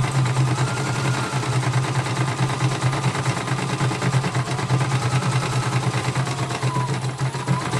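Portable CNY embroidery machine running an embroidery test: the needle stitches rapidly over a steady motor hum, with a faint whine that rises and falls as the hoop moves.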